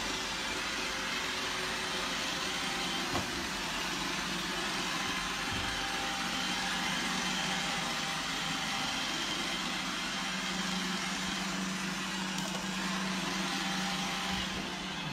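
Robot vacuum cleaner running: a steady whirring hiss over a low hum, with a single click about three seconds in.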